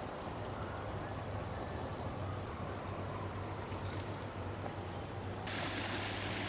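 Steady outdoor background noise with a low hum. About five seconds in, it changes abruptly to a brighter, fuller hiss of running, trickling water.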